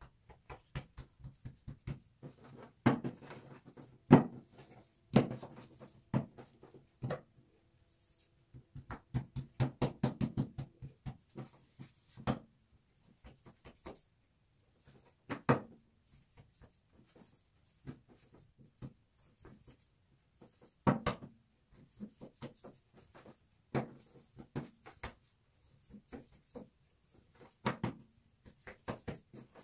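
Kitchen handling sounds: irregular knocks and clicks of utensils and cookware being set down and worked, with a quick run of clicks about a third of the way in.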